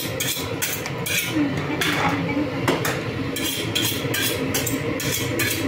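A knife working on a fish at a kitchen sink: a run of short scraping strokes, about three a second, pausing briefly about halfway through, with light metallic clinks.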